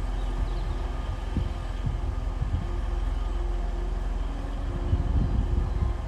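Train running: a steady low rumble with a faint steady hum and scattered low knocks.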